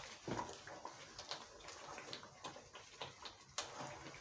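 Wooden spoon stirring thick, sticky halwa in a pot, faint scraping with a few light knocks against the pot; the halwa is thickening as it cooks.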